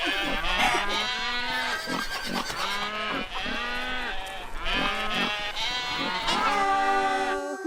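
Several voices imitating farm animals, mostly sheep-like "baa" bleats, overlapping one another in quick succession. A steadier held call comes near the end, then all of it cuts off abruptly.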